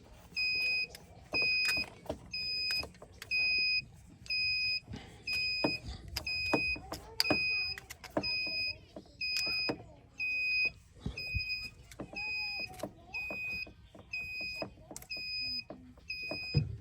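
A short, high electronic beep repeating evenly, about three beeps every two seconds, with light clicks and knocks of tools being handled between the beeps.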